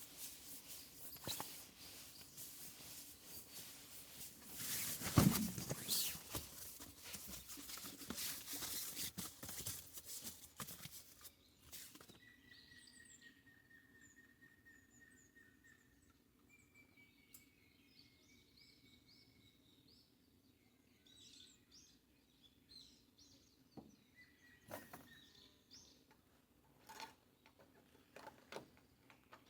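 Songbirds calling in woodland, with long steady whistled notes and scattered high chirps over the second half. Before that, a crackling, rustling noise with a thump about five seconds in.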